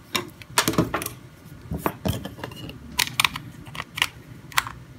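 Irregular small plastic clicks and taps from handling an old Nokia 2310 mobile phone as its SIM card is taken out and its casing handled.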